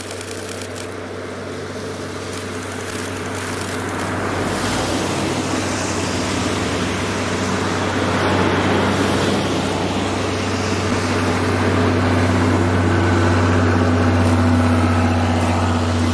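DE10 diesel-hydraulic locomotive with its V12 diesel engine running with a steady low drone as it hauls three coaches past. It grows louder over the first eight seconds as it approaches and stays loud as the coaches roll by.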